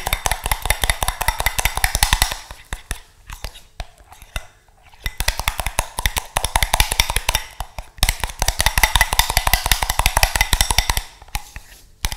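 Metal spoon beating a soft rye flour and water mix in a glass bowl: fast, rhythmic clinking, several strokes a second, in spells with a short lull after the first two seconds. It is air being whipped into a new rye sourdough starter.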